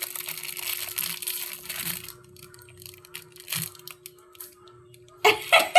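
Parcel packaging being torn and crinkled by hand as the parcel is opened: a dense rustle for the first two seconds, then scattered crackles. A few sharp, louder knocks come near the end.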